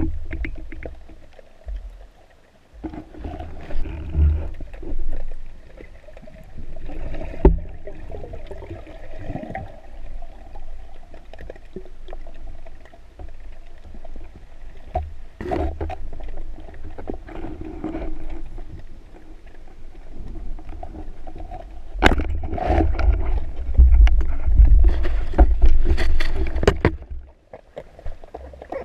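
Muffled underwater water noise picked up by a camera in a diving housing: a low rumble and sloshing with a few sharp knocks, louder for several seconds near the end.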